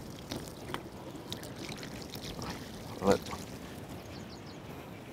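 Water being poured into and over a plucked whole turkey to rinse out its inside.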